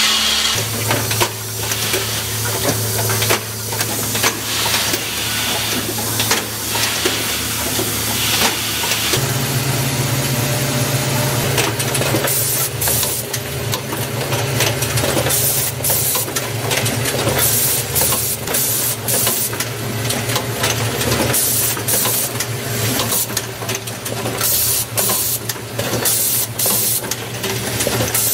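Automatic toggle-switch assembly machine running: a steady low hum from its vibratory bowl feeders, with frequent short hisses of air from its pneumatic stations, coming more often from about twelve seconds in.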